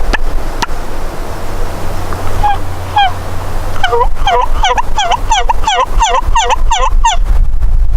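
Turkey yelps: two single yelps, then a run of about ten yelps at roughly three a second, each note dipping and rising in pitch. A steady low rumble runs underneath.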